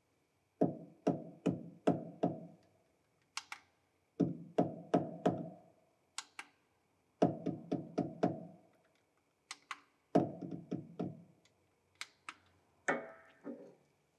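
Repeated mallet blows against a car's front suspension, struck to provoke knocking from a worn joint: four bursts of four or five sharp knocks about half a second apart, with a few lighter taps between and a ringing clatter near the end.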